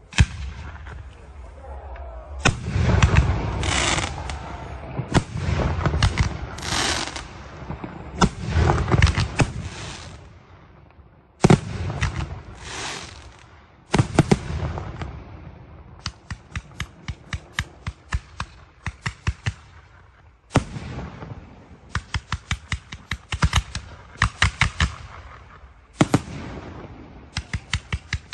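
Aerial fireworks display: shells burst overhead with deep booms and rumbling tails, then come fast runs of sharp bangs, several a second.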